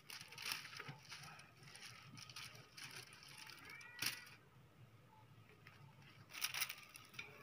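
Faint rustling and scraping of dried broom-grass stalks and a thin bamboo strip as the binding of a handmade broom head is worked by hand. There is a sharp click about four seconds in, with a short high chirp just before it, and the scraping grows denser near the end.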